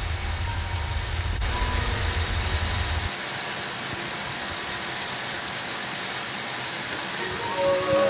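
Car engine idling, a steady low rumble that cuts off about three seconds in, leaving a faint hiss.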